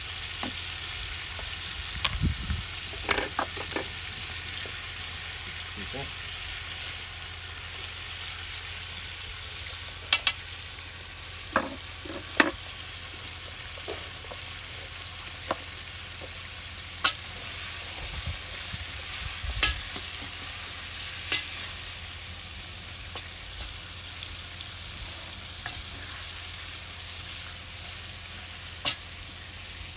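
Meat sizzling as it fries in a black cauldron over a wood fire, a steady hiss throughout. Scattered sharp clicks and knocks come as the meat is stirred with a long wooden spoon.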